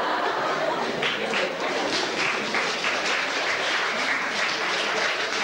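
Audience applauding: dense clapping from many hands.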